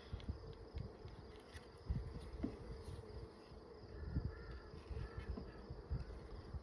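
Honeybees buzzing around an open hive as its frames are inspected: a steady hum of many bees, with scattered low thumps.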